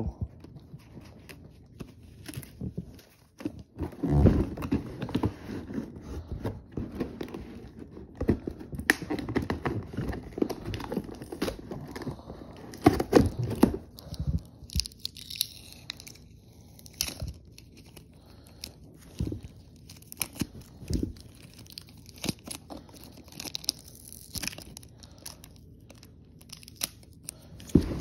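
Plastic packaging rustling, crinkling and tearing, with irregular clicks and knocks, as plastic toy track pieces are unwrapped and handled.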